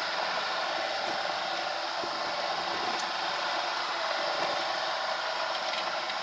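Steady fan-like whooshing hiss, even in level, with a few faint clicks as plastic parts are lowered into a stainless pot of dye.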